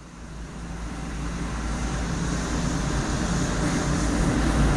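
Aircraft auxiliary power unit, a small gas turbine, running: a steady rumble with a faint whine, swelling louder over the first few seconds.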